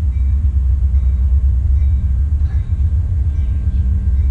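Steady low rumble with no speech, a constant deep background noise that underlies the whole recording.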